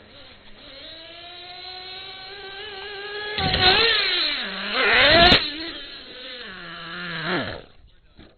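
Traxxas Revo nitro RC monster truck's small glow engine revving, its whine rising in pitch, then getting suddenly louder about three and a half seconds in as the truck takes the ramp. The note swings up and down while the truck is airborne, there is a sharp thud a little after five seconds as it lands, and near the end the engine note drops and stops.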